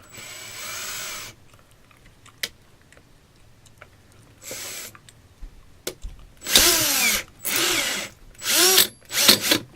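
Power drill run in about six short trigger bursts. The motor pitch dips and rises within each burst as a small titanium-coated high-speed steel bit drills in.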